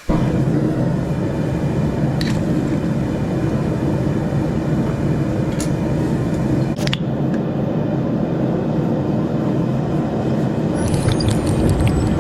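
A forge running with a steady loud rushing noise that cuts in suddenly, with a few sharp clicks, and a run of quick light metallic taps near the end.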